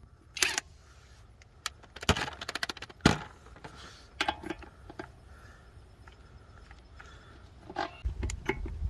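Handling noises: sparse, irregular sharp clicks and knocks, with a low rumble starting near the end.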